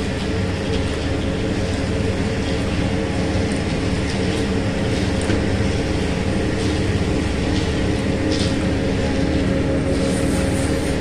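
A steady mechanical hum with a low rumble that holds constant, with a few faint ticks scattered through it.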